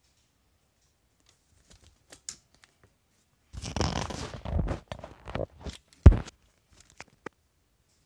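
Handling noise as the recording phone is moved around a manual typewriter: irregular rustling and rubbing that starts about three and a half seconds in, with one sharp knock about six seconds in and a couple of light clicks after it.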